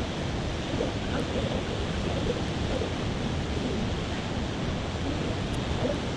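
Steady rushing roar of a waterfall: an unbroken noise of falling water.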